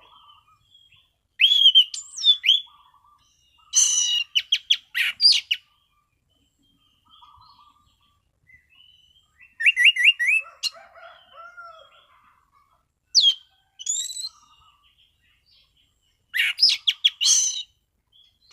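An anis cendana (orange-banded thrush) singing in a clear, open 'ngeplong' voice. Five loud phrases of quick, clear notes, several with sharp upward sweeps, are separated by pauses filled with soft, quiet twittering.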